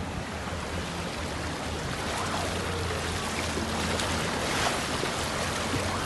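Floodwater washing and sloshing against a car as it drives through a flooded street, a steady rushing wash with the low hum of the engine underneath.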